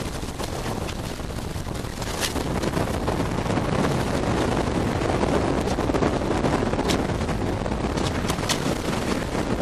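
Wind buffeting the microphone aboard a sailboat under way on choppy water. A few sharp clicks come through it, about two seconds in and twice near the end.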